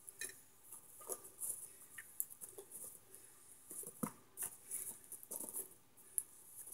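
Slow, close-up chewing of crunchy microwaved cornstarch chunks: faint, irregular crackles and small crunches, with a sharper click about four seconds in.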